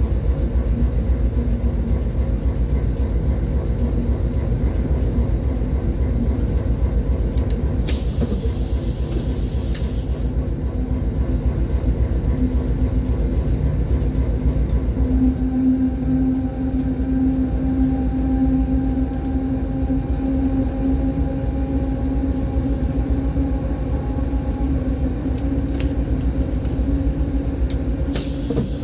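A train running with a steady low rumble and a droning tone. There are two spells of high-pitched squealing, about eight seconds in for two seconds and again briefly near the end.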